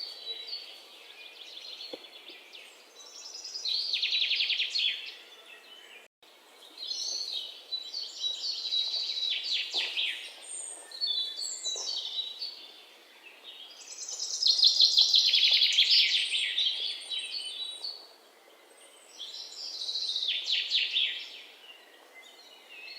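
Songbirds singing: trilled phrases of rapid high notes every few seconds over a faint outdoor hush. There is a brief cut-out about six seconds in.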